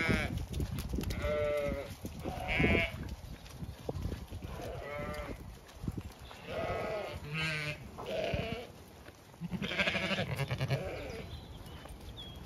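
A flock of Zwartbles sheep bleating, about eight calls one after another.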